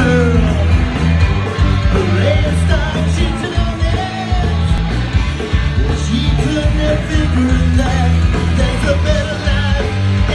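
Punk rock band playing live: loud distorted guitars, bass and drums, with a shouted, sung vocal.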